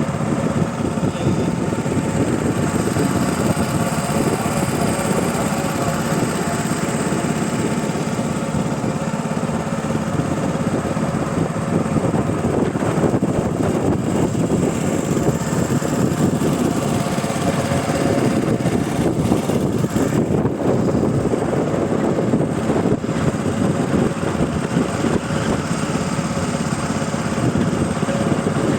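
A motor boat's engine running steadily under way, a loud unbroken drone.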